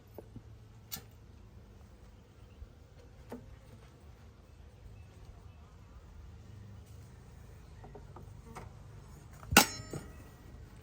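Honeybees buzzing steadily around an opened hive, with a few light clicks and one sharp, loud knock near the end.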